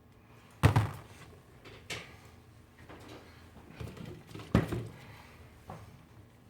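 Knocks of objects being handled and set down on a repair bench: two sharp knocks about four seconds apart, with a few lighter taps between and after.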